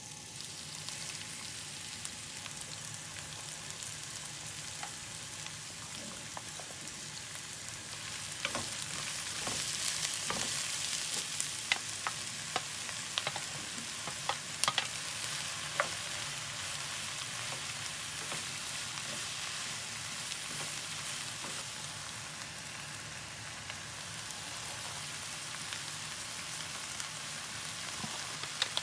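Sliced onions and vegetables frying in olive oil in a nonstick pan: a steady sizzle, with occasional sharp clicks as diced aubergine is tipped in from a metal tray and the vegetables are stirred with a wooden spoon.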